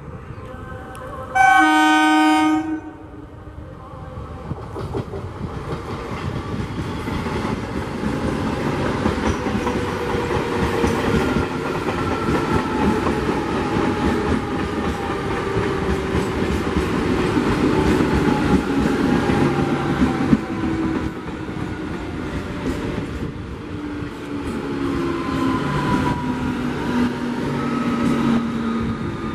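An EMU local train sounds its horn in one loud blast about a second and a half long, then runs past at speed, wheels clattering over the rail joints, with whining tones from the motor coaches that fall and later rise in pitch.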